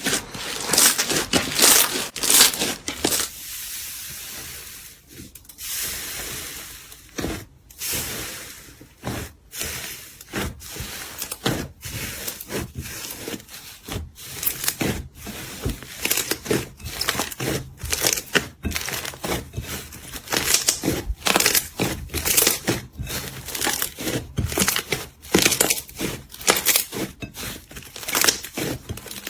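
Slime being squeezed and kneaded by hand, giving a dense, irregular run of crackling pops and clicks, quieter for a few seconds shortly after the start.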